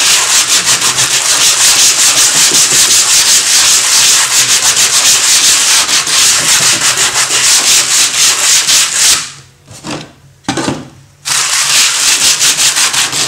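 Sandpaper on a wooden sanding block rubbed quickly back and forth over a gesso-primed wooden panel, wet-sanding a ground that has been softened with water into a paste. The strokes stop for about two seconds a little after two-thirds of the way through, with one short stroke in the gap, then start again.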